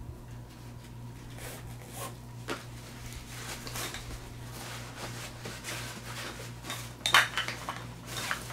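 A nylon stuff sack being handled and opened, fabric rustling, while the hard plastic water filter pump inside it clicks and knocks, the loudest burst about seven seconds in. A faint steady low hum lies underneath.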